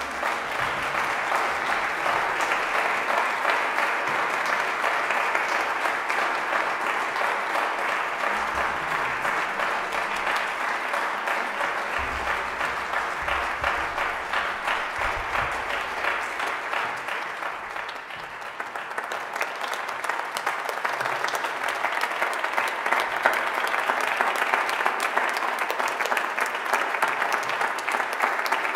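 Audience applauding, a dense steady clapping that eases off briefly about two-thirds of the way through, then builds again.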